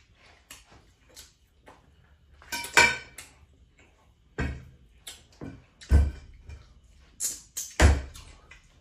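Knife and fork clinking and scraping against a plate in scattered short clicks, with a louder clatter about three seconds in and a few dull thumps.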